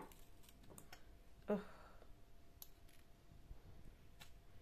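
Faint clicks of metal serving tongs as red onion slices are picked up off a plastic chopping board, with a brief voice sound about a second and a half in.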